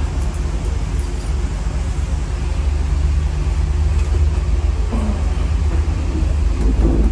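Zontes ZT155-U motorcycle engine running with a steady low rumble that grows slightly louder partway through.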